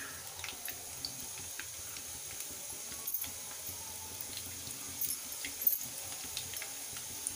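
Samosas deep-frying in well-heated oil in a kadhai: a steady sizzle full of small crackles, with a few louder pops about three and five seconds in.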